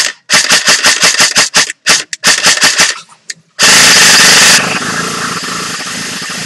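Automatic gunfire in rapid bursts of sharp shots, about seven a second, then about three and a half seconds in a very loud continuous blast of noise that drops after a second to a steadier, quieter rush.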